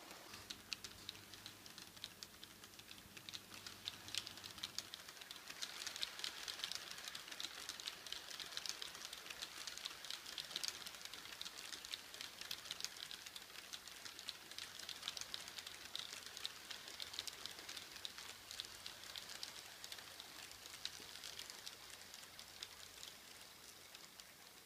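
H0-scale model train running on the layout: a fast, irregular patter of small metallic clicks from the wagons' wheels rolling over the rail joints and points, with a faint low hum in the first few seconds.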